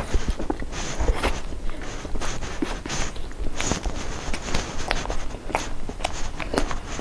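Close-miked chewing of a flaky pastry: a quick, irregular run of soft crunches and wet mouth clicks.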